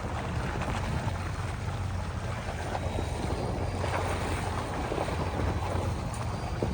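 Boat engine running steadily with a low hum, under wind buffeting the microphone and the rush of water.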